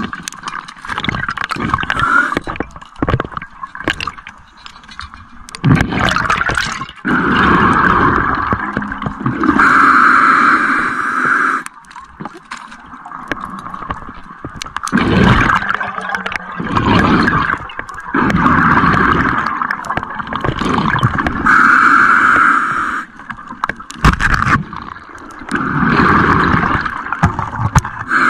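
Scuba diver breathing through an open-circuit regulator underwater. Hissing inhalations alternate with gurgling rushes of exhaled bubbles in a slow, repeating breathing cycle.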